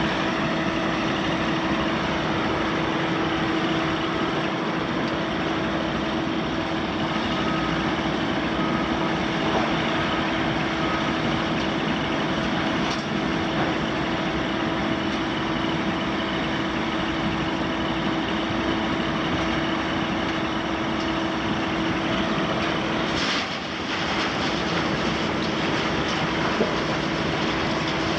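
Caterpillar 966M wheel loader's C9.3 ACERT diesel running steadily while working, with a steady whine over the engine noise that breaks off briefly a few seconds before the end. Faint short beeps sound about a third of the way in.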